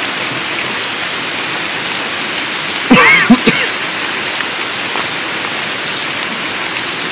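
Steady rain falling. A brief call that rises and falls in pitch sounds about three seconds in.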